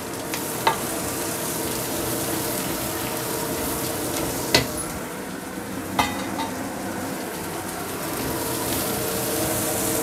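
Sliced onions and dried shrimp sizzling in hot oil in a wok while a spatula stirs them, with three sharp knocks of the spatula against the pan.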